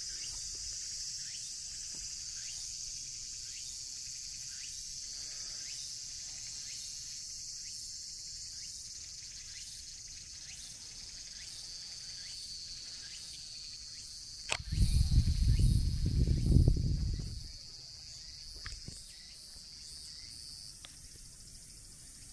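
A steady high-pitched chorus of insects. About fifteen seconds in, a loud low rumble starts with a sharp tick and lasts about three seconds.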